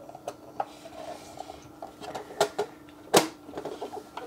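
Hard plastic clicks and knocks from a plastic CRT-monitor-shaped diskette holder being handled. Floppy disks are pushed into its slots, then its front is pushed shut, with the loudest knock a little after three seconds in. A faint steady hum lies underneath.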